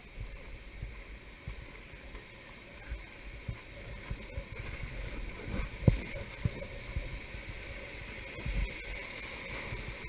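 River water rushing and gurgling around a whitewater raft heading into a rapid, with wind rumble on the microphone. A single sharp thump comes about six seconds in.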